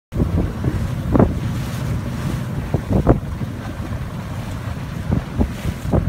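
Wind buffeting the microphone on an open boat: a steady, uneven low rumble with louder gusts about a second in and again around three seconds.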